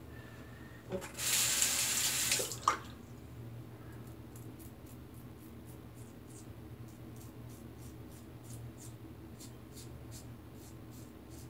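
A sink tap runs for about a second and a half and stops, followed by a sharp knock. Then a Rockwell 6C double-edge safety razor scrapes through lathered stubble in short, quick strokes.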